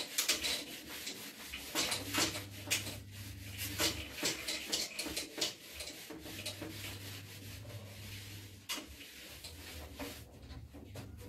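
Handheld whiteboard eraser scrubbing across a whiteboard in quick, irregular back-and-forth strokes, thinning out in the last few seconds.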